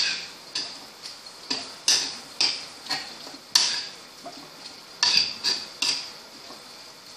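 A metal spoon stirring chicken and sliced onions in a black chatti pot, scraping and knocking against the pan in a series of sharp strokes, with a short pause around the middle.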